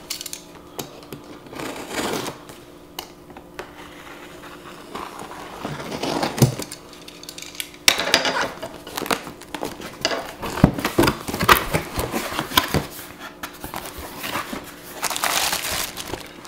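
A cardboard blender box being opened by hand: cardboard scraping and rustling, flaps pulled open, and plastic-wrapped parts crinkling. Scattered sharp knocks and clicks come thicker in the second half.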